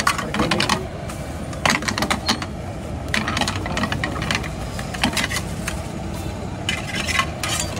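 Steel spatula clattering and scraping against an omelette pan and steel bowls, in quick irregular clicks, as an omelette is cooked and slid out of the pan. A steady low rumble runs underneath.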